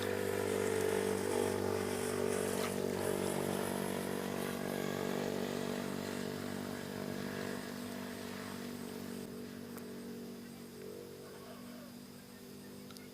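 A small engine running at a steady pitch and slowly fading as it moves away.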